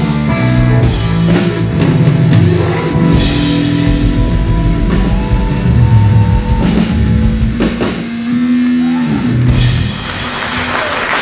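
Live blues-rock band with electric guitar and drum kit playing the last bars of a song, ending on a held chord about nine seconds in. Audience applause starts near the end.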